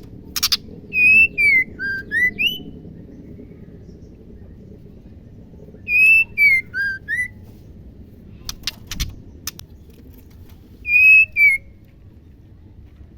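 Female white-rumped shama whistling short phrases of three to five clear, gliding notes, three phrases about five seconds apart, with a few sharp clicks in between.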